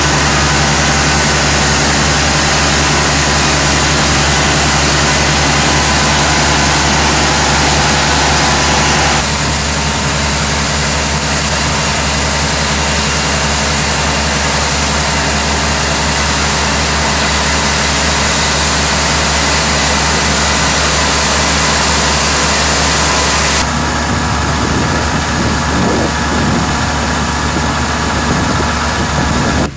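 Small Mitsubishi rice combine harvester running steadily at work: its engine and its cutting and threshing gear make a loud, even mechanical noise as it harvests rice. The sound shifts abruptly twice, and near the end the combine is unloading threshed grain through its auger spout.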